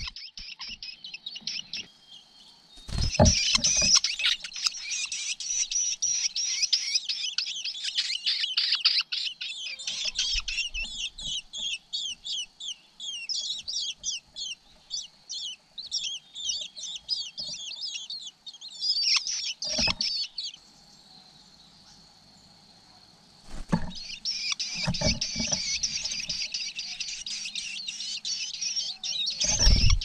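Nestlings begging in the nest: rapid runs of high, thin cheeps from several chicks, which stop for about three seconds some two-thirds of the way through and then start again. A few dull low bumps sound among the calls.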